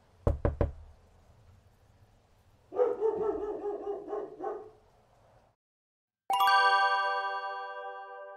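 Three quick knocks, then a dog barking in a rough run for about two seconds, then a single bell-like strike that rings on with several clear tones and slowly fades.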